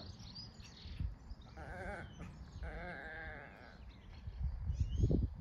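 Sheep bleating twice, two wavering calls about two seconds and three seconds in, the second longer. Low thumps follow near the end.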